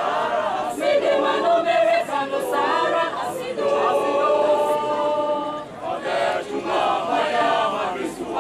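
School choir of girls and boys singing together, with phrases and held chords.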